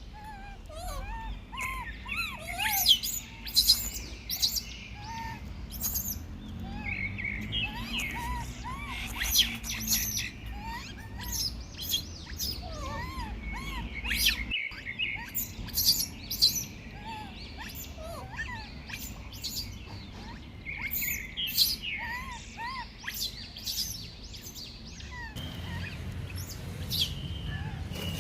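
Birds chirping: many rapid, high-pitched chirps and short squeaky calls over a low background rumble.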